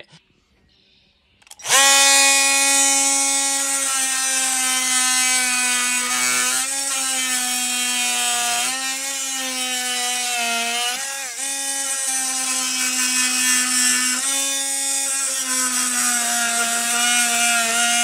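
Ryobi cordless oscillating multi-tool switched on about two seconds in, running with a steady buzz while its plunge-cut blade cuts into weathered timber. The pitch sags briefly a few times as the blade is loaded in the cut.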